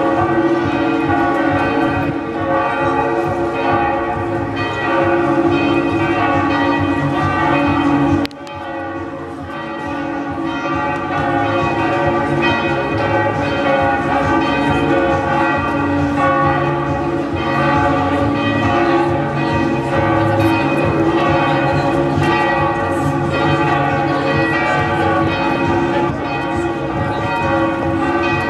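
Several large church bells, those of Antwerp's Cathedral of Our Lady, ringing together in a continuous peal, their tones overlapping and sustaining. The sound drops suddenly about eight seconds in, then builds back.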